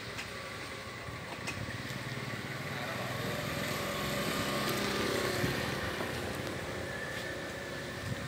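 A small engine running in the background, growing louder toward the middle and then easing off, with a few faint clicks.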